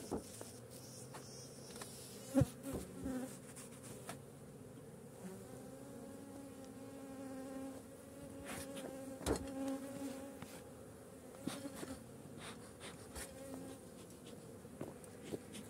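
Honeybees buzzing around the hives, several wing tones wavering up and down. A few sharp knocks from the hive covers and smoker being handled, the loudest about two seconds in.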